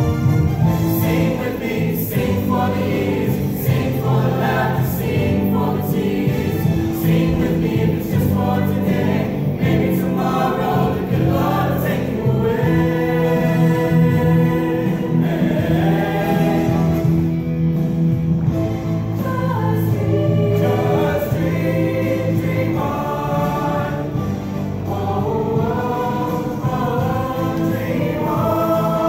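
A choir singing a song over sustained instrumental accompaniment.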